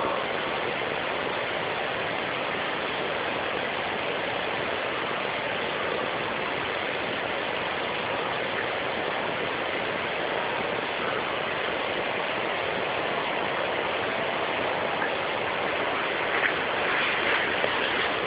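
A steady, even rushing noise with no clear pitch or rhythm, like a running engine, fan or distant traffic, with a few slight swells near the end.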